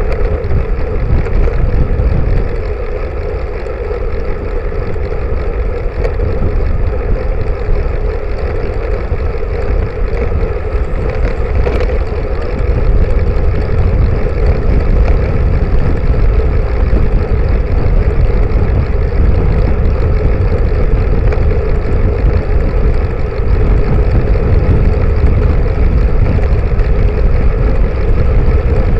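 Steady wind rush and road rumble from a bike-mounted camera riding along at speed in a group of road cyclists, with a constant low hum.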